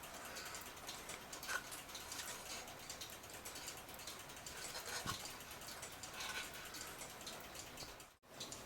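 Faint rubbing and handling noises with a few light clicks, from the clock case being wiped and handled.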